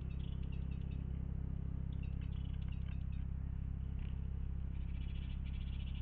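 Small songbirds chirping in short, quick bursts over a steady low hum, which is the loudest sound.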